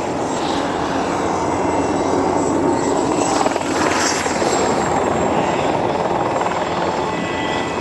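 Mosquito single-seat ultralight helicopter flying low in steep banked turns: steady engine and rotor noise that swells a little louder around the middle.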